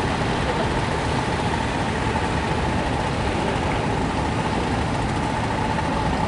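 A steady engine rumble with a faint steady whine above it, unchanging throughout.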